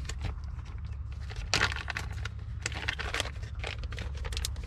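Plastic packaging crinkling and crackling in the hands as packets of fishing lures are handled, in quick irregular rustles with a louder crackle about a second and a half in. A steady low hum runs underneath.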